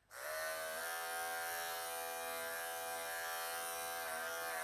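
Wahl electric pet clippers switched on, coming up to speed within a moment and then running with a steady buzzing hum.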